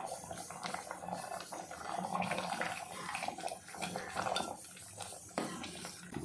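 Chana dal sambar boiling in an uncovered pot, bubbling with irregular small pops.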